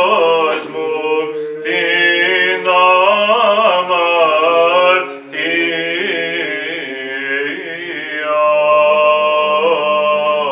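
Greek Orthodox liturgical chant: unaccompanied voices sing a slow melody that glides between notes over a steady held low note, with a short break about five seconds in.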